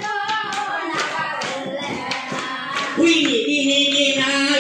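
Berunsai singing by a group of voices over steady rhythmic hand-clapping, about two claps a second. About three seconds in, a louder voice comes in on a long held note.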